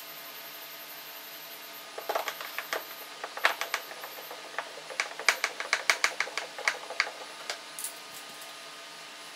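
A run of sharp clicks and taps of hard plastic and a screwdriver as the plastic AC blower and evaporator housing is worked on. The clicks start about two seconds in, come quickest, about six a second, around the middle, and stop near the end.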